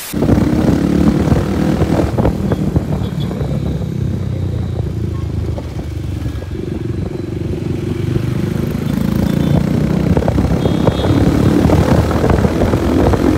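Motorcycle engine running under way in road traffic, heard from on the bike; it eases off slightly about midway and picks up again near the end.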